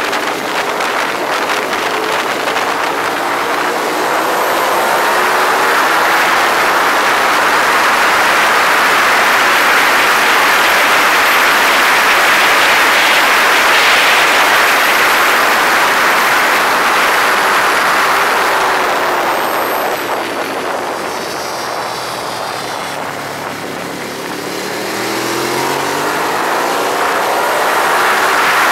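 Ducati 848's L-twin engine running hard at speed under a loud rushing noise. About three-quarters of the way through the revs fall away, then climb again as the bike accelerates.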